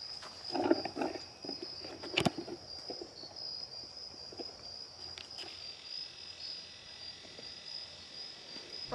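Insects trilling steadily on one high pitch, with a single sharp click about two seconds in.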